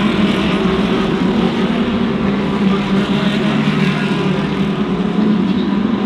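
GT3 race cars' engines running at speed on track: a steady, blended engine sound with a constant low drone and no single car standing out.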